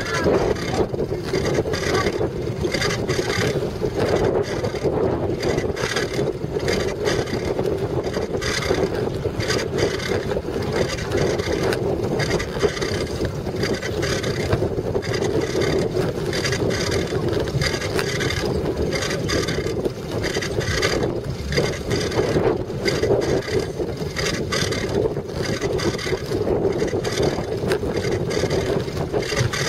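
Bicycle riding over dusty ground, heard through a camera mounted on the bike: a steady rumble of tyres and frame with constant small rattles, and wind on the microphone.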